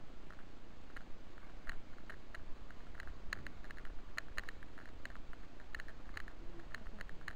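Walking noise picked up by a body-worn camera: irregular crackling clicks and rustles, several a second, over a steady low wind rumble.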